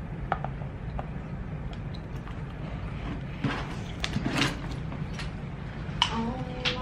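Rummaging through a tote bag: scattered rustles and small knocks and clicks of items being handled, over a steady low hum.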